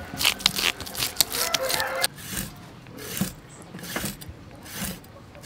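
Knife blade scraping the scales off a large goldfish on a wooden chopping board in quick, rapid strokes, then slower single knife cuts scoring the fish's flesh, four of them about a second apart.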